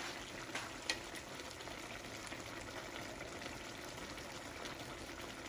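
A pan of squash, long beans and eggplant simmering in shrimp-paste sauce: a quiet, steady bubbling hiss, with a couple of faint clicks about a second in.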